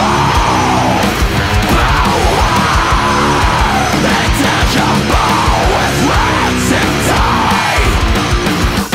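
Heavy metal band playing at full tilt: distorted guitars over drums with rapid, steady kick-drum strokes and sliding lead lines.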